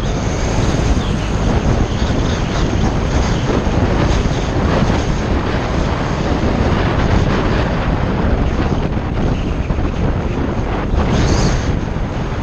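Wind buffeting the microphone in a steady loud rush, with vehicle road noise underneath.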